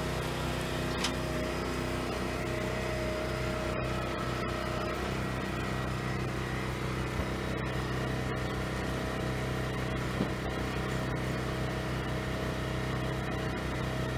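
Firewood processor's engine running steadily, with a few faint knocks; its tone shifts slightly about five seconds in.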